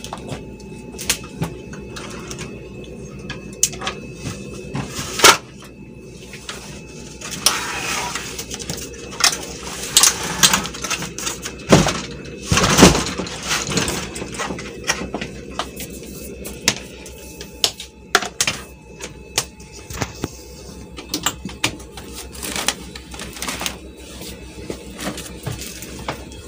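Scattered clicks and knocks of a CRT television being handled and stood upright, with louder thumps about five seconds in and near the middle.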